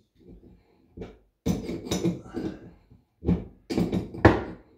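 Crescent wrench working the toilet's water supply-line nut loose under the tank: irregular metal clinks and scrapes in several short bursts.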